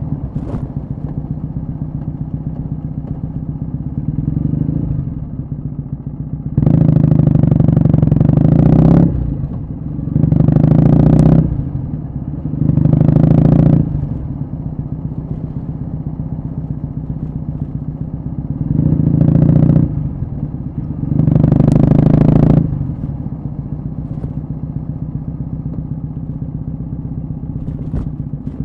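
Kawasaki W650's air-cooled parallel-twin engine, fitted with a short Yamato Stainless Cabton muffler, running at a light steady throttle while riding. It is opened up five times, each time for one to two seconds.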